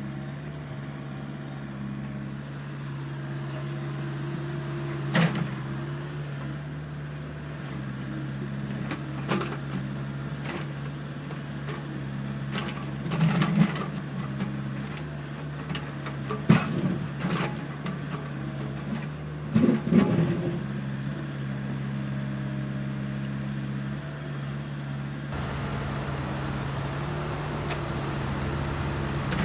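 Heavy earth-moving machine's diesel engine running steadily, with about eight sharp clanks and knocks scattered through the middle of the stretch.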